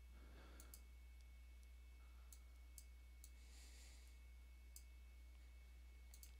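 Near silence with about half a dozen faint, scattered computer mouse and keyboard clicks, over a steady low electrical hum.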